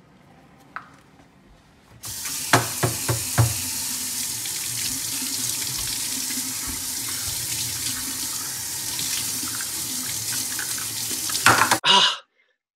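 Kitchen faucet running into a stainless steel sink as a reusable K-Cup filter is rinsed out. The water comes on about two seconds in with a few knocks, runs as a steady hiss, and stops abruptly near the end.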